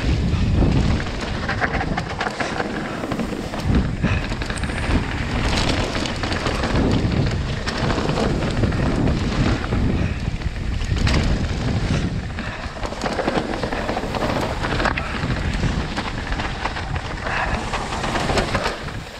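Mountain bike running fast down a rough dirt downhill trail: a steady rush of tyre and wind noise with a low rumble, broken by frequent sharp knocks and rattles from the bike over stones and roots.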